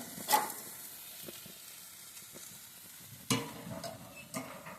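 Chicken sizzling faintly as it cooks, with a sharp click just after the start and two duller knocks later on.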